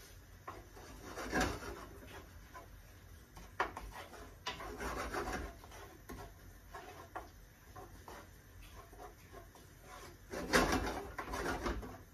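Wooden spatula stirring and scraping chopped onion in a frying pan, in irregular bursts of scrapes and light knocks against the pan, as the onion is sautéed in olive oil. The strongest bursts come about a second in, around the middle, and near the end.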